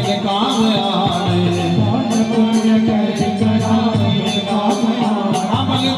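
Instrumental interlude of a devotional bhajan: a melody line over regular hand-drum and jingle-percussion beats, at a steady loud level.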